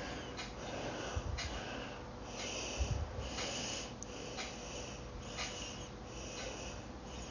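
A person breathing close to a phone's microphone, soft hissy breaths at about one a second.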